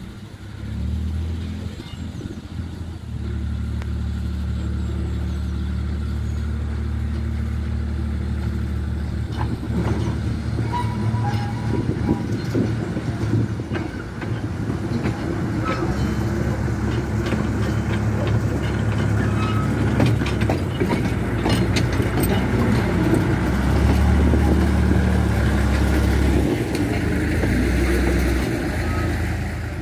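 Narrow-gauge diesel locomotive engine running as it hauls a coach past, the engine note holding steady and then stepping up or down several times. Clicks and clanks of the wheels over the rail joints come through as it goes by, with the engine loudest near the end.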